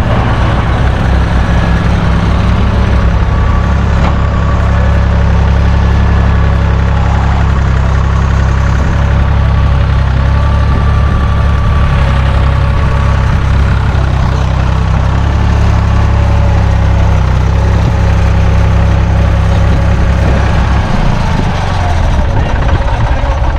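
Farm tractor engine running steadily at a low, even note; near the end the engine note dips and turns ragged.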